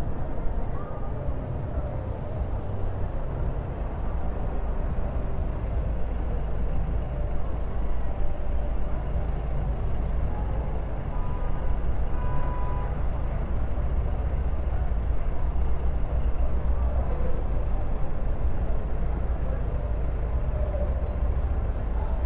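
Steady low rumble of road traffic and vehicle noise while driving through city streets, with a faint short tone about halfway through.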